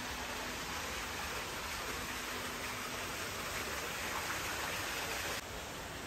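Steady, even hiss of water, drops to a quieter hiss near the end.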